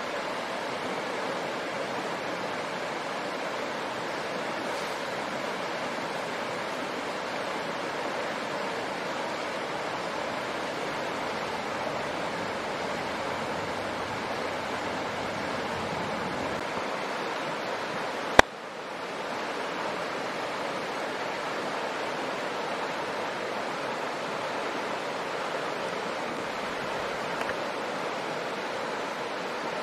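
Shallow stream running over rocks, a steady rushing of water. A single sharp click cuts through it a little past halfway.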